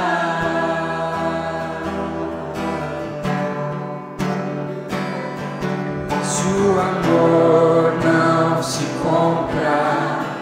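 Worship band playing a slow song: acoustic guitar and keyboard under voices singing long held notes.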